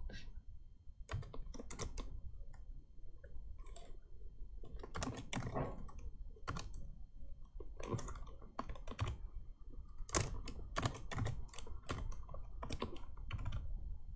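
Typing on a computer keyboard: irregular keystrokes with short pauses between bursts.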